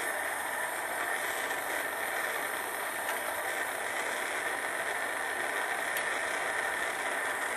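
Plumbing gas torch burning with a steady hiss as its flame heats a vertical copper pipe joint for soldering.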